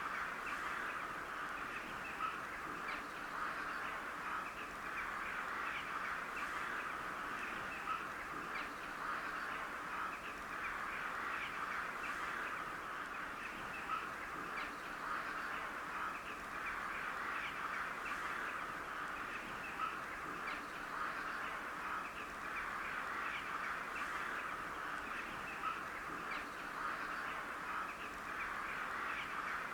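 A flock of crows calling: many overlapping caws make a steady chatter, with a louder single call now and then.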